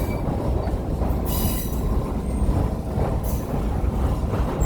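Heritage passenger train rolling along the rails, heard from aboard: a steady low rumble, with two short high-pitched bursts about a second in and again around three seconds in.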